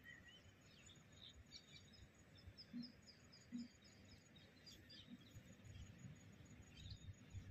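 Near silence: faint outdoor ambience with small birds chirping, including a quick run of short high notes a few seconds in.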